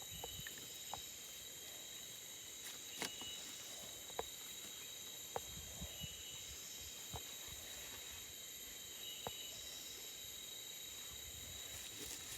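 Steady, high-pitched insect chorus of several constant tones, with a few scattered short clicks and taps.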